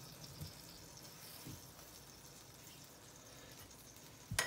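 Quiet room tone with faint soft handling of pierogi dough rounds on a floured countertop, then one sharp tap near the end.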